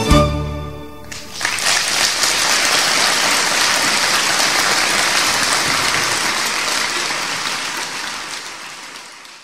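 The song's last notes stop about a second in. Then an audience applauds steadily, fading out over the last few seconds.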